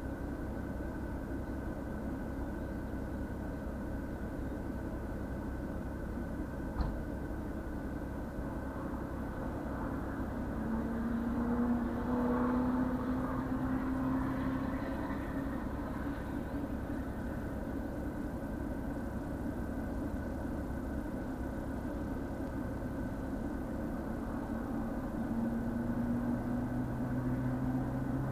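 Car engine idling steadily, heard from inside the cabin. A single click comes about seven seconds in, and an engine note rises in pitch for a few seconds about ten seconds in and again near the end.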